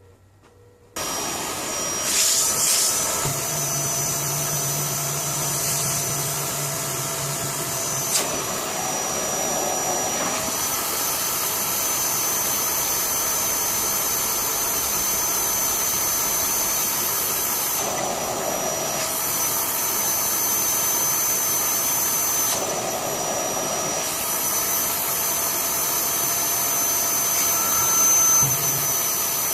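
Vacuum cleaner switching on about a second in and running steadily with a high whine, sucking out a split-system air conditioner's drain hose to clear a blockage. Its tone shifts several times as the suction changes.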